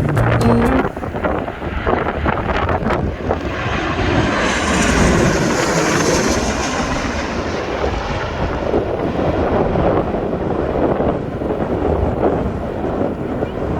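Boeing 737-800 with CFM56-7B turbofan engines passing close overhead on landing: a steady jet rumble and rush, with a high fan whine that comes up about four seconds in and fades after about eight seconds.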